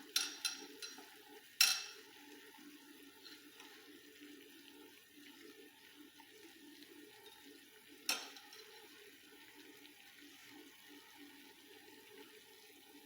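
Small pot of water on the boil, a steady low bubbling and hiss. A few sharp knocks sound over it, the loudest about one and a half seconds in and another about eight seconds in.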